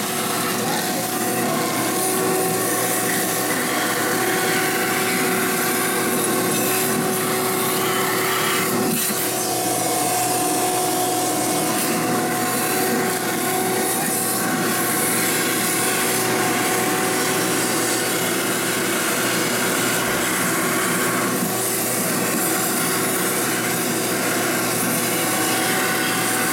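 Kitchen garbage disposal running steadily with a rasping, grinding noise as popcorn kernels go down the drain.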